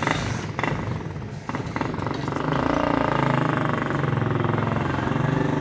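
A motor vehicle's engine running steadily, growing louder about two seconds in and then holding level, with a few short knocks before it.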